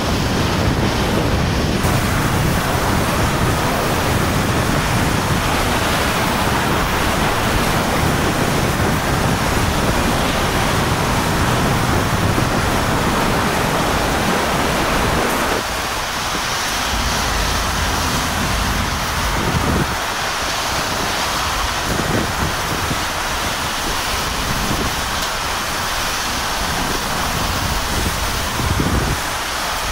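Hurricane-force wind and driving rain: a loud, steady rush of noise with wind buffeting the microphone. About halfway through it changes abruptly to a thinner rush broken by occasional low bumps of gusts.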